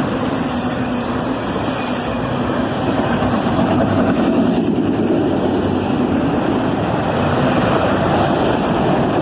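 Freight train passing: the steady noise of a southbound autorack train's locomotives and cars going by, a little louder about three seconds in.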